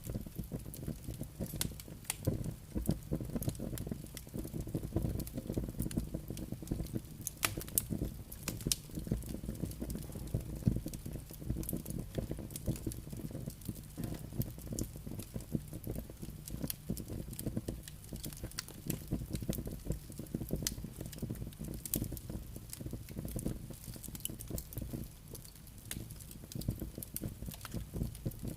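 Campfire burning, its wood crackling and popping in dense irregular snaps over a steady low rumble.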